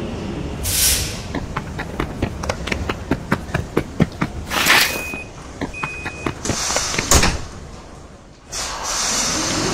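Metro train sound effects: a burst of air hiss, quick running footsteps, another hiss and two short beeps, then the sliding doors shutting with a knock about seven seconds in. Near the end the train starts moving with a rising whine.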